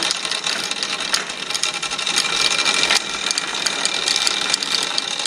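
Sky-cycle, a bicycle running along an overhead cable, rolling with a continuous mechanical clicking and rattling from its chain and wheels.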